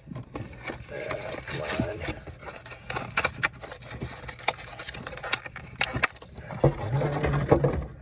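Close handling noise from hands working with a small die-cast toy car: a run of sharp clicks, taps and scrapes over a light rustle, with a short low hum about seven seconds in.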